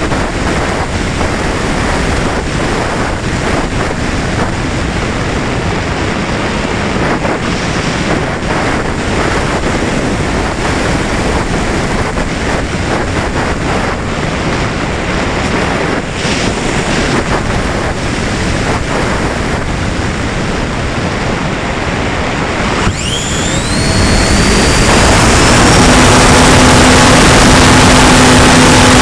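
Wind noise from airflow over a Valenta Volcano RC sailplane's onboard camera as it glides. About 23 seconds in, its Jeti 2035 brushless motor starts with a fast rising whine, turning the folding propeller, and the sound becomes louder and steady with a whine held under it.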